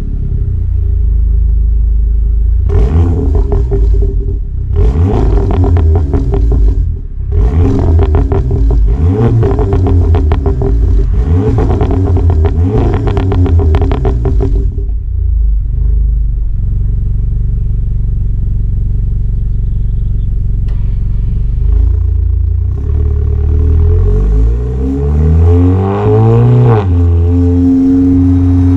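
Exhaust of a software-tuned VW Golf 7 GTI's turbocharged 2.0-litre four-cylinder, heard at the tailpipe: revved in short bursts several times while standing, settling to idle, then pulling away with a rising engine note and a gear change near the end.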